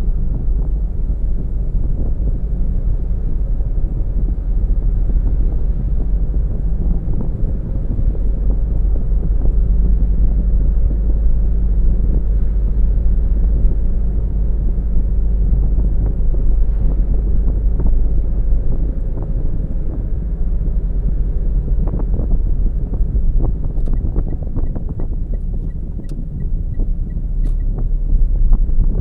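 Car driving along a road: a steady low rumble of tyres and engine with some wind noise. Short knocks come late on, along with a faint, fast, even ticking.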